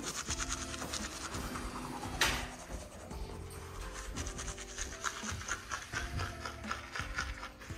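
Background music with held chords, overlaid by a rapid, scratchy rubbing noise. A single sudden swoosh-like hit comes about two seconds in.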